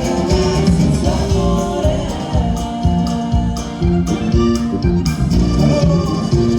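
A norteño band playing live, with a steady beat and held melody notes over it.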